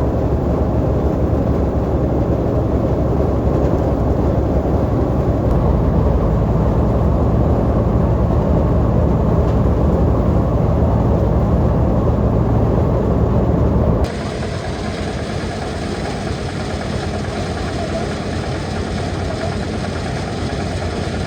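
A motor running steadily at a constant pitch. About fourteen seconds in, the sound changes abruptly to a lighter, less bass-heavy running.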